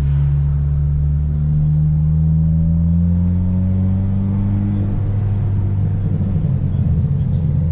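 Car engine and road rumble heard from inside the cabin while driving: a low drone that slowly rises in pitch for about five seconds, then turns rougher.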